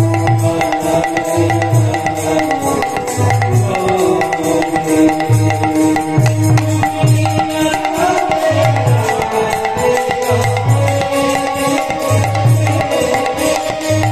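Bengali devotional song: a man singing a melody over tabla accompaniment, with deep strokes from the tabla's bass drum every second or two under quick, sharp hand strokes.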